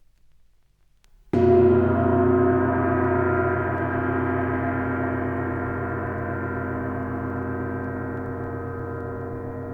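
A gong struck once about a second in, then ringing on with many overlapping tones that beat slowly and fade gradually.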